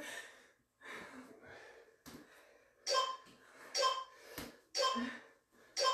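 Interval workout timer beeping about once a second from about three seconds in, counting down the last seconds of a work interval.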